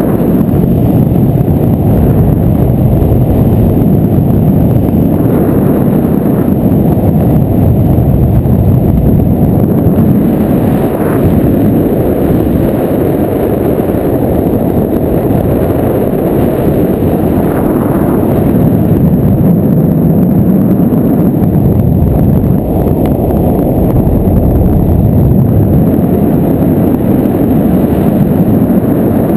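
Wind from the paraglider's airspeed buffeting the action camera's microphone: a loud, steady low rumble.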